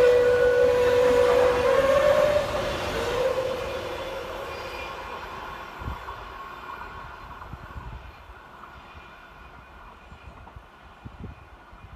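A passenger train running past and away, its locomotive's two-tone horn sounding in alternating high and low notes for the first few seconds. The rumble of the train then fades steadily as it recedes.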